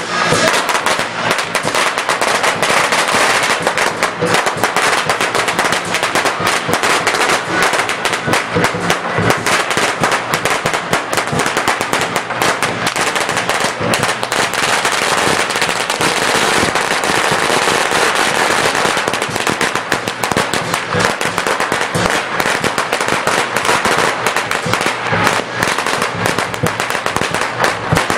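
Strings of firecrackers going off in a dense, rapid, unbroken crackle of bangs.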